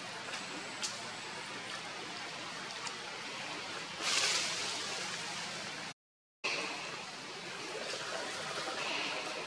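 Steady outdoor hiss. It swells into a louder rush about four seconds in and cuts out for a moment about six seconds in.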